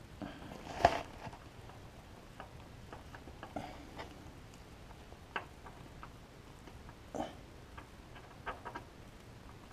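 Scattered light clicks and knocks, with one sharp knock about a second in, as a CNC-machined aluminium timing chain tensioner is worked by gloved hand into its port on a Honda S2000 engine.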